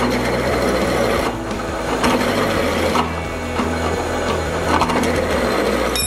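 Drill press running, its twist drill bit cutting through a steel bracket: a steady motor hum under a grinding cutting noise.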